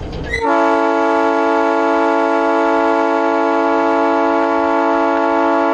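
Locomotive air horn blowing one long, steady chord of several notes, starting about half a second in. It is the warning blast for a road grade crossing just ahead.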